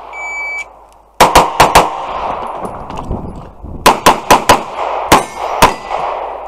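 Electronic shot timer giving one steady high beep lasting about half a second, then a pistol firing rapid strings of shots: four fast shots about a second after the beep, a quick burst around the four-second mark and two more near the end, with steel targets ringing as they are hit.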